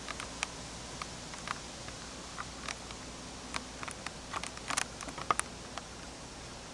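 Scattered light clicks and ticks at irregular intervals over a steady hiss, with a small cluster of louder ones a little before the five-second mark and the sharpest just after it.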